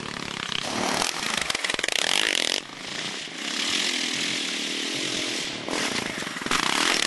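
Motocross engine revving hard on a dirt track, rising and falling with the throttle: it drops away about two and a half seconds in and climbs again near the end.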